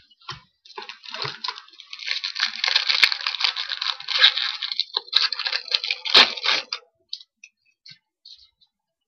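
Foil trading-card pack wrapper being torn open and crinkled for about six seconds, ending with a sharp snap, then a few faint ticks as the cards are handled.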